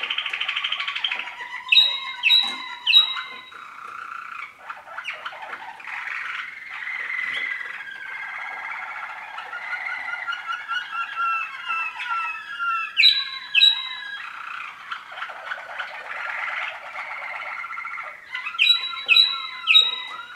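First-year Waterslager canaries singing: a continuous, low-pitched warbling and trilling song. It is broken by loud sharp notes, three in quick succession about two seconds in, two in the middle, and three more near the end.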